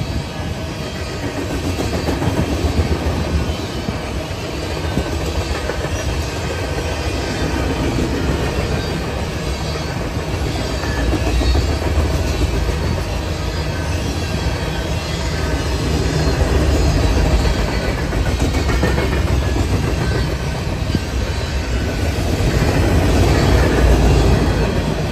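Freight cars of a Norfolk Southern mixed freight train (covered hoppers and tank cars) rolling past close by: a steady rumble of steel wheels on the rails that swells and eases in waves.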